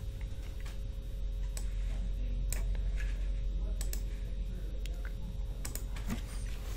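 Computer mouse and keyboard clicks: single sharp clicks, roughly one a second, as menu commands are chosen, over a steady low electrical hum.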